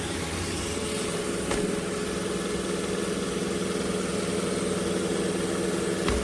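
iRobot Roomba j7+ robot vacuum's motors running with a steady whirring hum, with a couple of light clicks.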